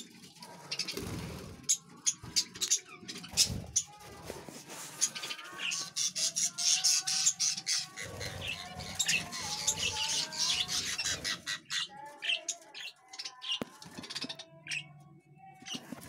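A flock of budgerigars chattering, chirping and squawking, a dense warble that is busiest in the middle, with a few sharp knocks mixed in.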